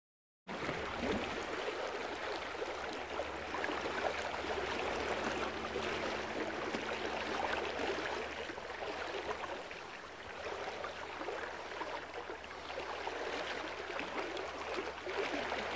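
Shallow river running, a steady rushing wash of moving water that begins abruptly about half a second in.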